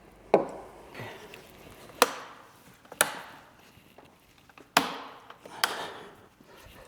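About half a dozen sharp knocks and clicks of hard parts being handled, roughly a second apart, with quiet between them.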